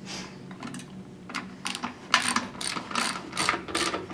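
Hand ratchet fitted with a 5 mm hex bit clicking in quick, repeated strokes as it backs out a pump's volute bolt. The clicking starts about a second in.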